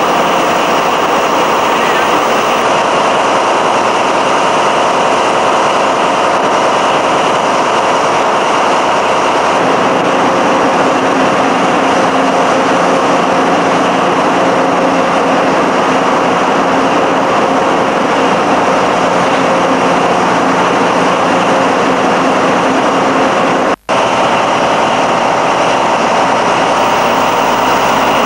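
Loud, steady machinery noise of a warship's engine room, with several engines running together as a constant hum and roar. The sound drops out completely for an instant about three-quarters of the way through, then carries on unchanged.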